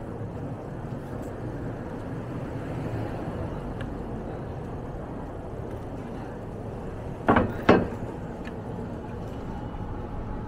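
Steady city street and traffic noise heard from a moving bicycle, with two sharp, loud knocks about half a second apart some seven seconds in.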